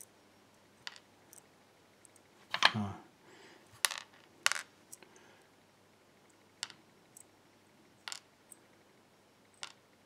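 Small brass lock key pins dropping one by one onto a plastic pinning tray as a lock cylinder is gutted: about a dozen light, sharp clicks and taps, scattered irregularly, the loudest a few seconds in.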